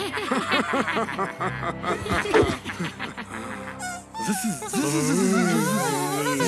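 Background music with cartoon voices: a string of quick snickering laughs in the first few seconds, then the little alien creatures chattering in their own made-up language.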